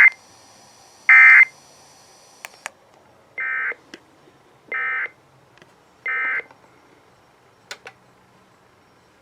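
Emergency Alert System end-of-message data bursts over FM radio: short, buzzy digital warbles of SAME tones. Two loud bursts come at the start, then after a pause three quieter ones about a second and a half apart, with a few faint clicks.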